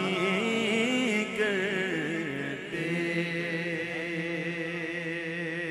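Devotional naat singing: a man's voice draws out a winding, ornamented phrase, then from about three seconds in holds one long steady note.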